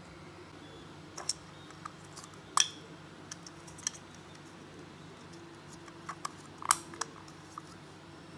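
Light clicks and knocks of 3D-printed plastic model parts being handled on a tabletop, with two sharper knocks about two and a half seconds in and near seven seconds. A faint steady hum lies underneath.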